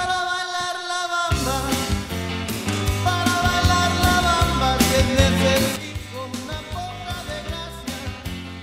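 A recorded song with a singer playing. It opens on a held sung note with no bass, then the full band with bass and a steady beat comes in about a second in.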